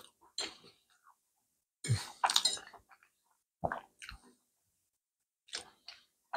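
Close-up eating sounds: a metal fork clinking and scraping on a plate and chewing of fried mushrooms and pasta, in a few short separate bursts with pauses between, the loudest about two seconds in.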